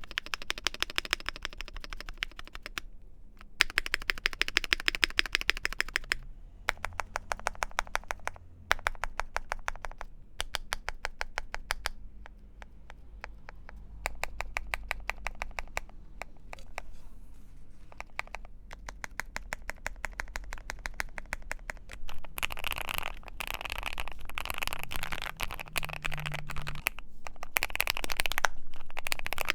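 Modded Keychron Q3 mechanical keyboard with lubed Gateron Clear linear switches being typed on fast, a rapid patter of keystrokes in runs separated by short pauses. The last stretch is denser and louder.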